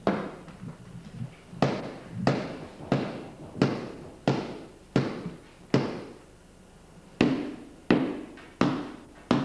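Percussion struck in a slow, steady beat, about three strokes every two seconds. Each sharp hit rings out and fades. The beat pauses briefly a little past halfway, then picks up again.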